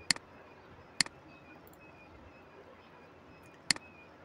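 Three sharp computer mouse clicks, one at the start, one about a second in and one near the end, each a quick press-and-release tick over faint hiss.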